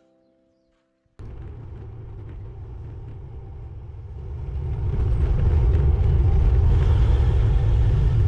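Wind rushing over a GoPro's microphone while riding a road bike: a dense low rumble that starts abruptly about a second in and grows louder about four seconds in.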